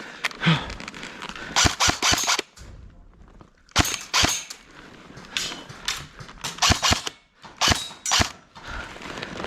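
Airsoft guns firing in several short volleys of rapid, sharp pops, with brief gaps between the volleys.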